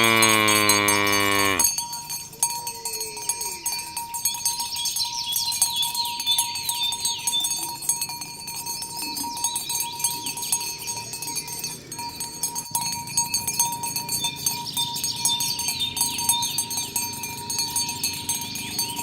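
A cow moos once, a long deep call that ends about two seconds in. After it come quieter high chirping sweeps in repeated clusters.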